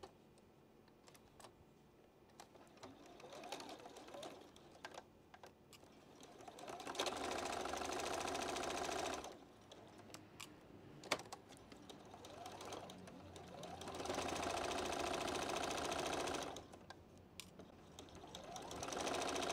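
Juki domestic sewing machine stitching a seam in spurts: the motor winds up gradually, then runs steadily for about two seconds, twice, with a third run building near the end. Light clicks come between the runs, with one sharp click in the middle.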